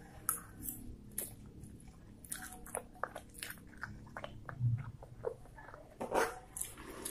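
Close-miked chewing of spicy fried instant noodles with rice: irregular wet mouth clicks and smacks. Near the end a fork knocks against the plate.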